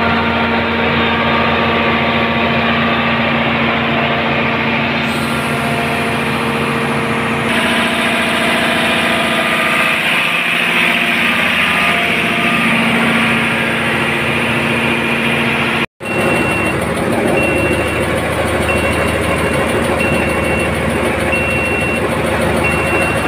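Marine diesel generator set (auxiliary engine) running steadily with its alternator turning. After a cut about two-thirds of the way in, a high alarm beep joins, repeating a little faster than once a second.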